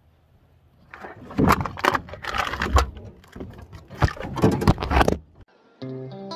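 A run of loud, irregular knocks and rattles close to the microphone, as gear is handled in a small metal boat, from about a second in until about five seconds in. Guitar music starts near the end.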